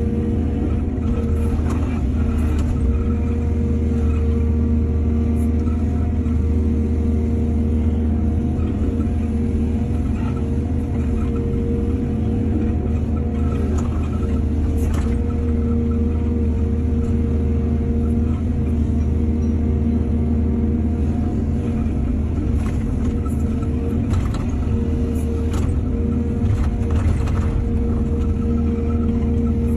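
Excavator's diesel engine running steadily under load, with a deep rumble and a few faint knocks now and then.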